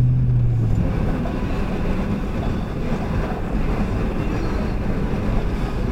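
Snowmobile running on a trail: a steady low rumble of engine and track, with a low hum that fades out about a second in.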